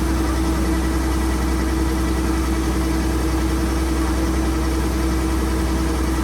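An engine running steadily at a constant speed, with an unchanging hum.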